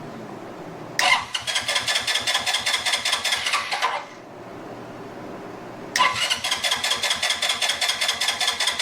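Electric starter cranking the Wolf Striker's 125 cc engine in two attempts of about three seconds each, a rapid chugging with a high whine, without the engine firing: there is no spark at the plug.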